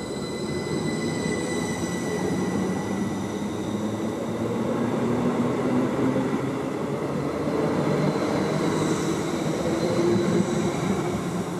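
Electric multiple-unit passenger train passing close by at speed: steady rumble of wheels on rail with a high, steady electric motor whine on top.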